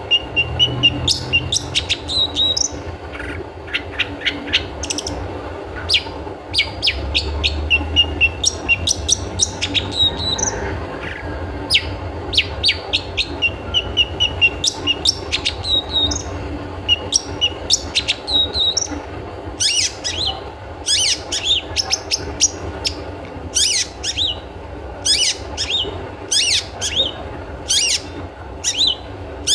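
Long-tailed shrike (cendet) calling in its "toet toet" style: quick runs of short clipped notes mixed with harsh, scratchy calls, coming many times over steady background noise.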